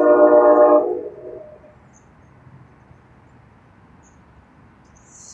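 Nathan K5LA five-chime air horn on a commuter-train cab car sounding a loud steady chord that cuts off about a second in. Only quiet background hiss follows.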